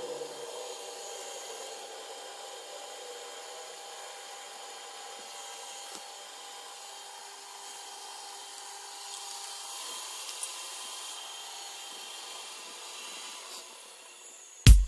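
Steady, quiet whine of a small spinning machine: several high tones held level, with a few faint ticks. Loud funk music cuts in abruptly just before the end.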